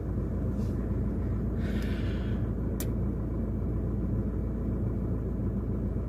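Steady low rumble of a stationary car's engine idling, heard from inside the cabin, with one faint click a little under halfway through.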